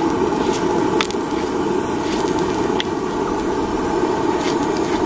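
LPG gas burner running steadily under a steel griddle, with a few sharp crackles from the hot oil being brushed and poured onto it.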